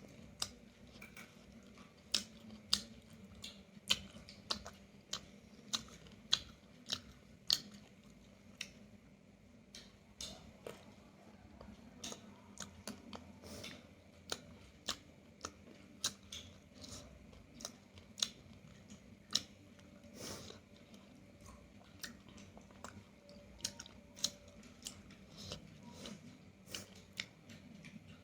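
Close-up chewing and biting on roasted chicken, with sharp crunching clicks about once or twice a second.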